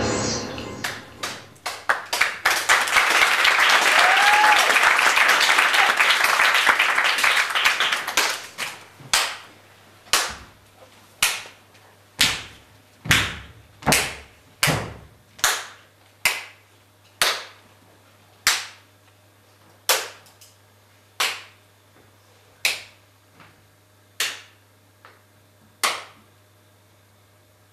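Hand clapping in a theatre: a burst of applause for about five seconds, then single sharp claps that ring briefly in the hall, about one a second at first and spacing out gradually toward the end.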